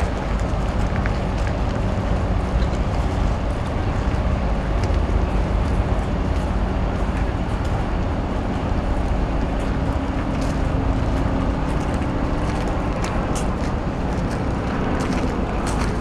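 Steady low rumble of city traffic, with no single event standing out.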